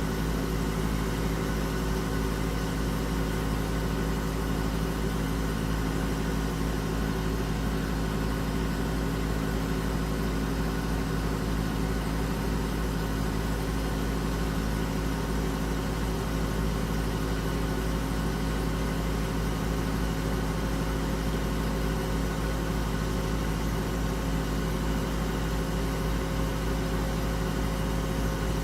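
Air conditioner running with its compressor on: a steady, unchanging hum with several steady tones in it.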